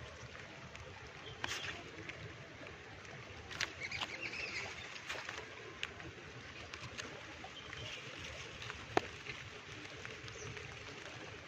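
Rain falling steadily, with scattered sharp taps and drips.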